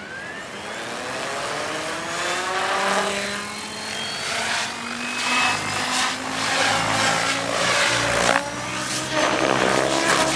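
Electric RC helicopter, an MSH Protos Max Leggero, spooling up: a motor whine climbs in pitch over the first few seconds. Then the rotor blades beat and the pitch swings up and down, with the sound growing louder, as it flies 3D manoeuvres.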